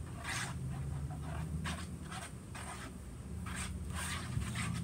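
A glue-based slime mixture being stirred by hand, with irregular scraping strokes of the stirrer against its container, over a low steady hum.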